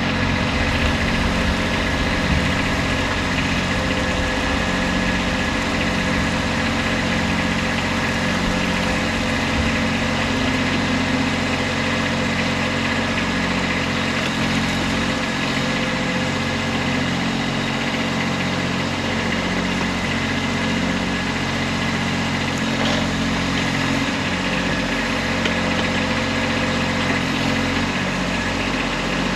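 Kubota B2301 compact tractor's three-cylinder diesel engine running steadily while it powers the BH70 backhoe digging a ditch.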